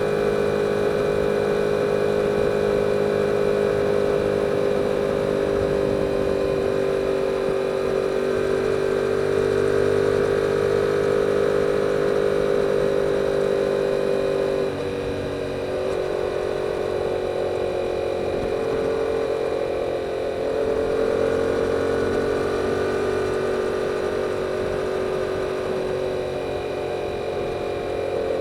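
2022 Yamaha R7's 689 cc parallel-twin engine running under way through the stock exhaust, its note rising slowly. About halfway through the engine note and loudness drop suddenly, then the revs pick up again.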